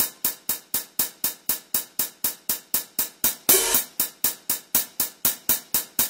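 Music with a steady percussion beat of short, sharp strikes about four a second, and one longer, louder hit about three and a half seconds in.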